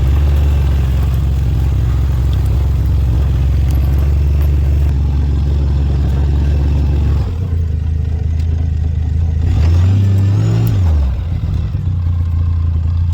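ATV engine running steadily under way. The engine note changes about seven seconds in, and near ten seconds there is a brief rev that rises and falls.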